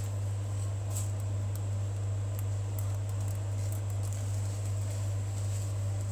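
A steady low hum throughout, with a few faint clicks from the flowers and scissors being handled.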